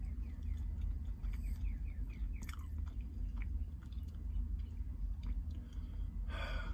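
A person chewing a mouthful of sandwich close to the microphone, with small wet mouth clicks throughout, over a steady low hum. Near the end there is a brief louder rush of noise.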